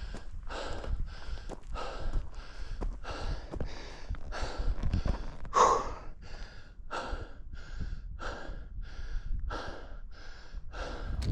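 A hiker breathing hard, panting in quick, even breaths at about two a second from the effort of climbing steep mountain terrain.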